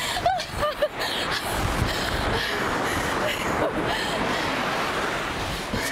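Ocean surf washing up the beach: a steady rushing noise that holds at an even level after the first second.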